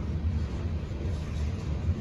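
Loaded coal hopper cars of a freight train rolling past with a steady low rumble of wheels on the rails.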